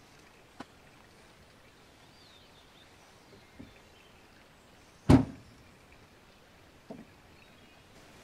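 A car's rear hatch slammed shut about five seconds in: one heavy thud. A few light knocks from gear being loaded come before it, with faint bird chirps behind.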